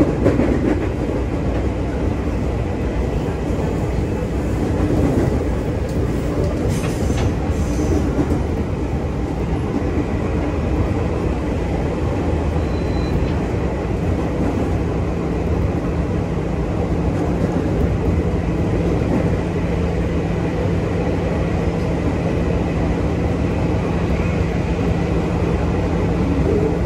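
Steady running noise of a Jakarta KRL commuter electric train in motion, a dense low rumble without pauses. About halfway through, a low steady hum joins in.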